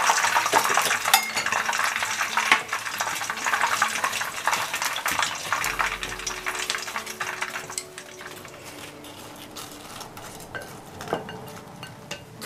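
Hot fried chicken pieces being tossed in sauce in a glass bowl: wet stirring with sharp clicks of a spatula and chopsticks against the glass, over sizzling that dies down about halfway through.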